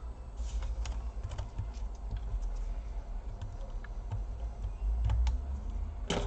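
Scattered small plastic clicks and ticks as a Samsung NP530 laptop's plastic case is pried apart along its seam with a sharp tool, with a louder cluster of snaps near the end.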